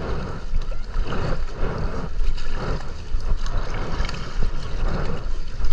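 Kayak paddle strokes splashing rhythmically in sea water, about one to two a second, with wind buffeting the microphone.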